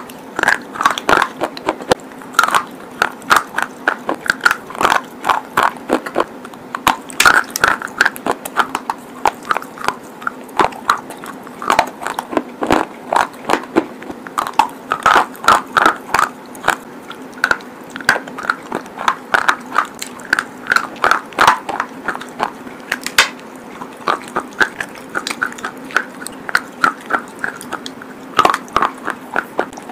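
Close-up biting and chewing of dry and water-soaked red slate pencil pieces and chips: a rapid, uneven run of sharp, crisp crunches and snaps.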